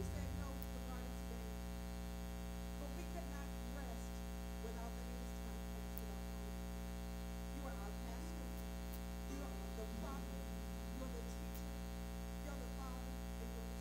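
Steady electrical mains hum, with faint indistinct wavering sounds far behind it.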